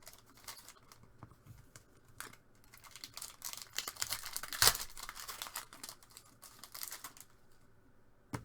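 Foil trading card pack wrappers crinkling and tearing as packs are ripped open, in irregular crackly bursts, with one louder sharp crackle about halfway through and quieter handling near the end.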